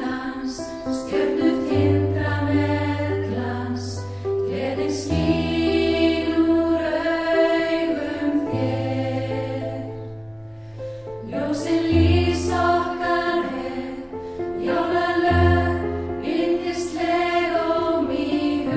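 Women's choir singing a slow Christmas song with piano accompaniment, with a short lull between phrases about halfway through.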